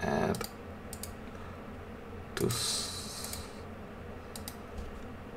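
A few scattered clicks of computer keyboard keys, spread out rather than in a steady typing run.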